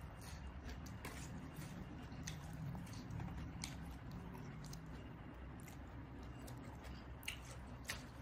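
A person chewing a mouthful of green papaya salad close to the microphone, with faint, scattered wet mouth clicks over a low steady hum.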